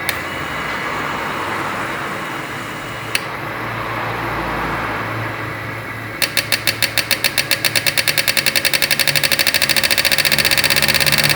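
Fuel injectors from a 1.4 Chevrolet Onix being pulsed on an injector test and cleaning bench. A steady hum with a single click about three seconds in. From about six seconds the injectors click in an even rhythm, a few times a second, speeding up into a fast, even rattle.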